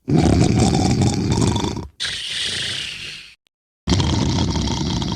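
Very loud snoring. A long, rough snore of about two seconds is followed by a shorter hissing breath, then a brief pause, and the cycle starts again near the end.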